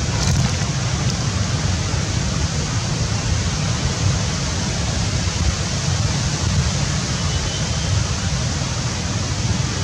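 Wind buffeting the microphone: a steady rushing noise with a deep, flickering rumble underneath.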